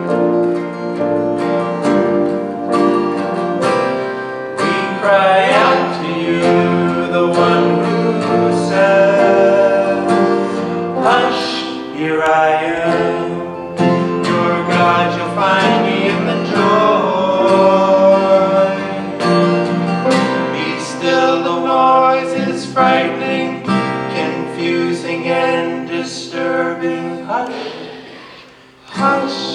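A song sung to acoustic guitar accompaniment, with sustained sung notes over strummed and plucked chords. The music briefly drops away near the end, then resumes.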